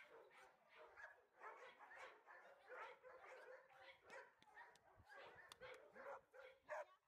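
Two dogs vocalizing at each other in play: a faint, continuous run of short yips and whines.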